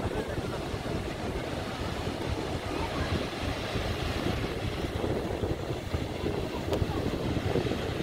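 Steady rushing of Athirappilly Falls and the river below it, mixed with gusty wind noise on the microphone.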